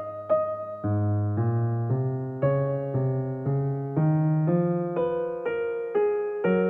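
Gentle background music on a piano-like keyboard: a slow melody of single notes, about two a second, over lower held notes.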